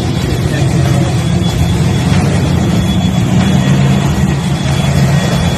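Ford 347 stroker small-block V8 in a Bronco II running steadily, with a thin high whine underneath from about halfway in.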